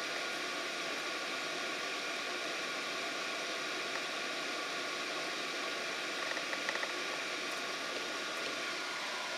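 Steady fan-like hiss with a faint high whine, and a few faint ticks about six and a half seconds in.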